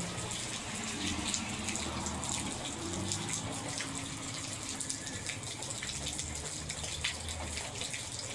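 Steady rain, with water running and splashing out of a downspout, and scattered drops ticking close by.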